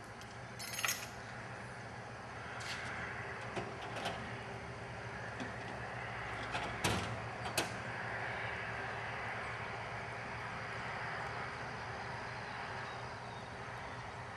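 Small powered aircraft tug at a biplane's tail wheel, running steadily, with a few sharp clanks and rattles.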